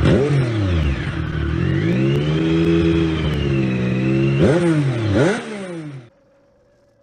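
Motorcycle engine revving as an intro sound effect: quick throttle blips, a longer held rev in the middle, and two sharp blips near the end before the sound cuts off abruptly about six seconds in. Faint soft music follows.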